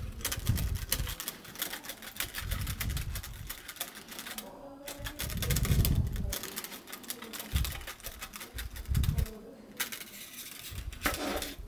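Plastic wings and joints of a 3D-printed articulated monarch butterfly model clicking and rattling rapidly as they are flapped by hand, with several low thumps in between.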